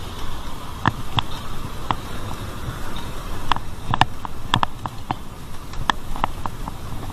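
Bicycle riding noise: a steady rush of wind and road with irregular sharp clicks and rattles from the bike, about two a second.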